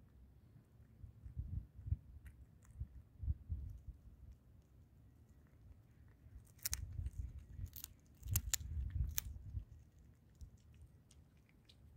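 Tabby cat chewing and crunching raw chicken bones. There is muffled chewing in the first seconds, then several sharp cracks of bone between about six and nine seconds in.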